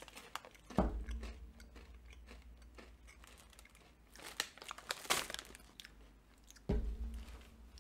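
A mouthful of crunchy cookie-flavoured M&M's candies being chewed, their shells crunching in scattered bursts. Two dull thumps come about a second in and near the end.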